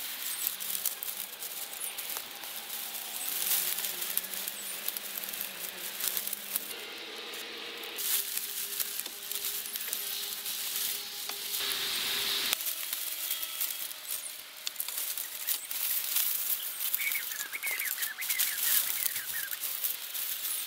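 Bundles of dry reed stems rustling and crackling as they are handled and pressed into a thatched roof, a dense, uneven crackle that comes and goes with each movement.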